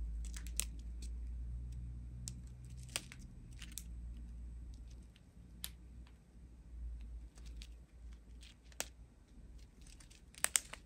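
Small clear plastic bags of resin diamond-painting drills crinkling and clicking now and then as the strip of bags is handled, with a short cluster of crackles near the end. A low steady hum sits under the first half.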